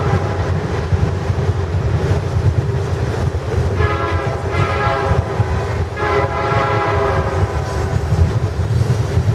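Freight locomotive horn sounding two blasts, about four seconds in and again about six seconds in, over the steady low rumble of a passing train.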